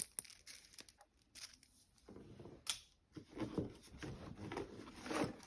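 Zip ties and hand tools being handled in a plastic tool tote: light rustling with a few sharp plastic clicks, the loudest about two and a half seconds in.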